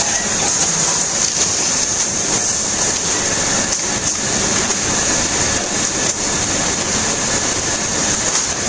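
Steady mechanical din of a keyboard screen printing workshop, with the printing machine running and a strong high hiss over it. A few faint clicks sound through it.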